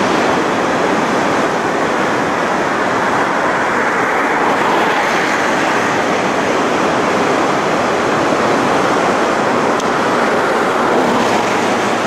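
The Latefossen waterfall rushing, heard close up: a loud, steady wash of falling water with no breaks.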